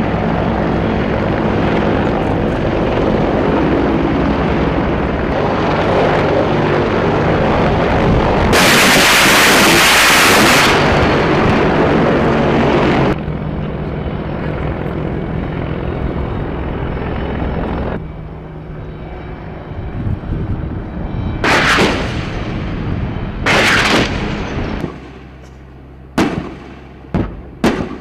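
AH-64 Apache attack helicopter's rotor and engines running in flight, then a very loud rushing hiss of about two seconds, a Hellfire missile launching. Later come two short loud blasts, and near the end a run of sharp cracks.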